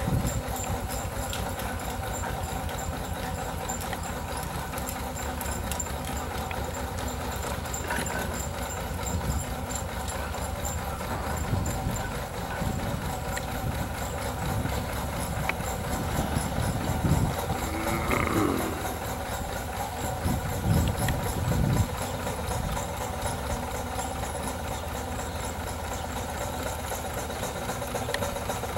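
5/8-scale Wood Brothers 22/70 steam traction engine running as it drives slowly along, with a rapid, steady beat throughout and a few louder surges in the middle.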